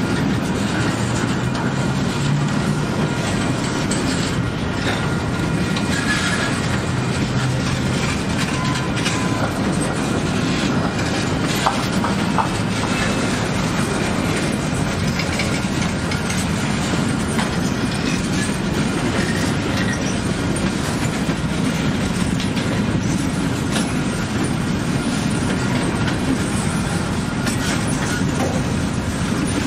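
Freight train rolling past: a steady rumble with the clatter of steel wheels over the rail joints, and a faint high wheel squeal.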